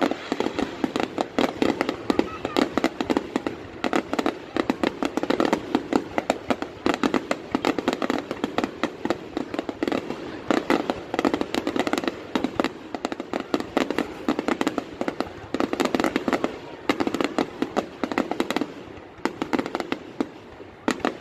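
Fireworks going off in a dense, continuous crackle of rapid bangs, easing briefly near the end.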